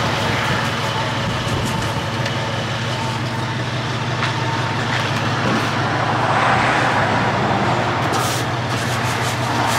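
A truck engine running steadily, a constant low hum, with road traffic noise.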